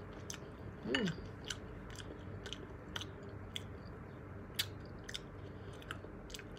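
A person chewing a bite of fried tuna roll close to the microphone, with irregular small clicks and smacks. There is a brief "mm" hum about a second in.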